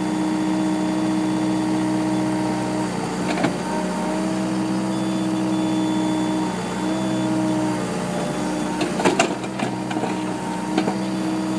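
Excavator's diesel engine running steadily with the hydraulics working the boom and bucket as it digs soil, the engine note dipping briefly under load a few times. A few sharp knocks of the bucket in the dirt, the loudest about nine seconds in.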